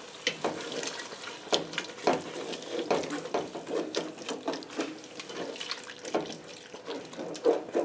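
A wooden spoon stirring a thin almond-milk and flour sauce in a stainless steel pot. It makes irregular wet scrapes and clicks against the sides and bottom of the pot.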